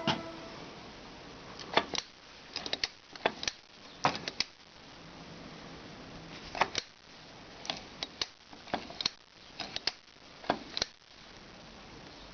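Irregular sharp clicks and light knocks, some single and some in quick clusters of two or three, over a faint steady hiss.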